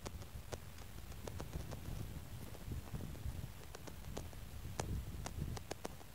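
Handling noise from a handheld phone's microphone: a low rumble with scattered, irregular clicks and taps.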